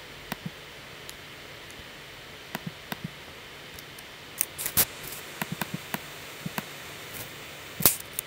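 Computer mouse and keyboard clicks at irregular intervals while a number in the patch is edited, with a cluster of quick clicks a little past halfway and one louder click near the end, over a steady low hiss.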